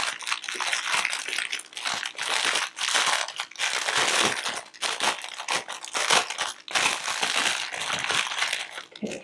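Clear plastic packaging bag of a diamond painting coaster kit crinkling in quick, uneven flurries as hands turn it over and squeeze it.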